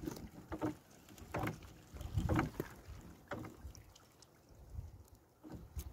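Fishing net being hauled by hand into a small boat: irregular rustles and knocks as the wet net and its floats are pulled over the side.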